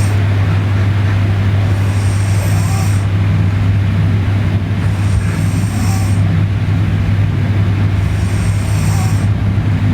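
A person snoring in sleep, one breath about every three seconds, over a loud, steady low hum.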